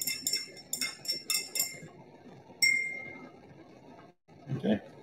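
Glass stirring rod clinking against the inside of a glass beaker while copper oxide is stirred into hot sulfuric acid. There is a quick run of ringing clinks for the first couple of seconds, then one last sharp clink a little past the middle.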